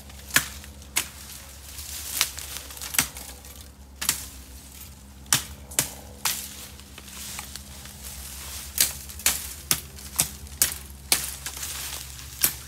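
Irregular sharp clicks and cracks of bamboo canes, twigs and dry leaves being pushed aside and handled in a bamboo thicket, over a steady low hum.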